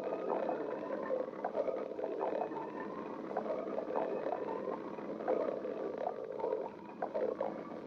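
A person's stomach growling: a continuous gurgling rumble broken by short, irregular bubbling pops, easing briefly near the end.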